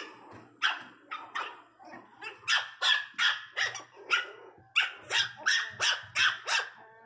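Miniature pinscher puppies barking in quick, high-pitched yaps, about three a second with a short lull about two seconds in, as they squabble and guard a bone.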